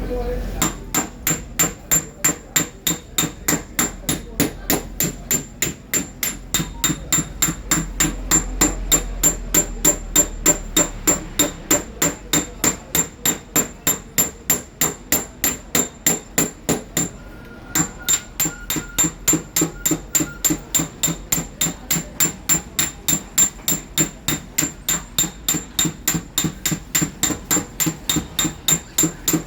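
A small hammer tapping on a car fender's sheet metal in paintless dent repair, steady light strikes at about three a second with a bright metallic ring. There is one short break past the middle before the tapping resumes.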